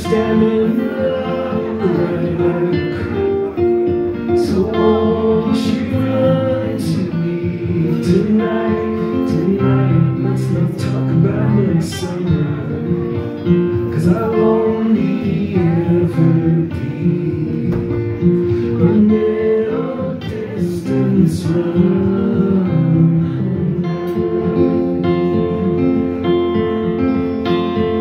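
Male voice singing over a strummed acoustic guitar, in a live solo performance.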